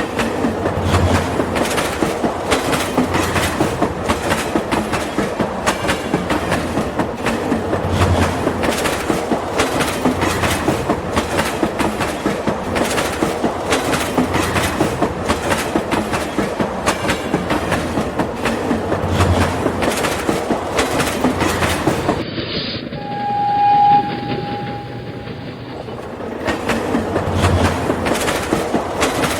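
Train running on its track with a steady rapid clickety-clack. About three-quarters through, the clicking drops away, a single held horn note sounds, and then the clicking resumes.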